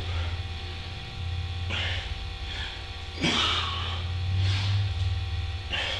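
A man breathing hard through push-ups, with a sharp, breathy exhale at each rep, about one every one to one and a half seconds. A steady low hum runs underneath.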